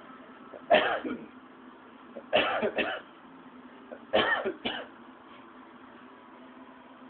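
A person hiccuping three times, about one and a half to two seconds apart, each sharp hic followed closely by a shorter second sound, over a steady low hum.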